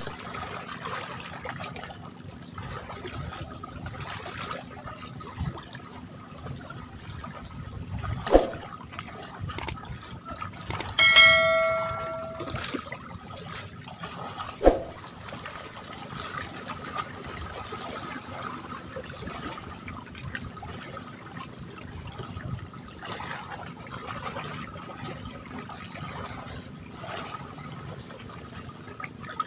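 Steady wash of choppy lake water around a man wading chest-deep with a cast net. About eleven seconds in, a short bright chime with ringing overtones sounds between two sharp clicks: the sound effect of a subscribe-button overlay.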